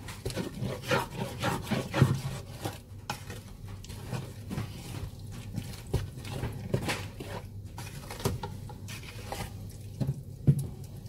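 Spatula stirring and scraping a thick, wet chili-and-onion spice paste frying in oil in a large aluminium pot: irregular scraping strokes, several a second.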